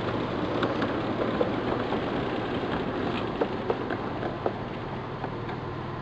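A 1/8-scale ridable train rolling along its track: a steady low engine hum under a run of irregular clicks and knocks from the wheels and couplings, with a cluster of sharper knocks in the middle.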